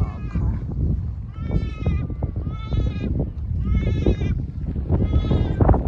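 A goat bleating four times, each call about half a second long with a quavering pitch, over a low rumble of wind on the microphone.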